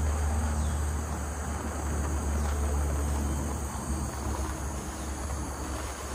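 Steady high-pitched chorus of insects over a constant low rumble.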